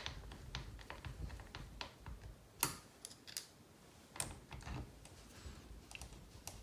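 Faint, scattered clicks and taps of small screws and a hex driver being handled and worked into a plastic RC car chassis, with sharper clicks about two and a half and four seconds in.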